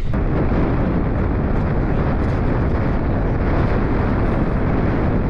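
Wind buffeting the camera microphone on open ice: a loud, steady rumbling rush with no engine tone in it, jumping up suddenly at the start.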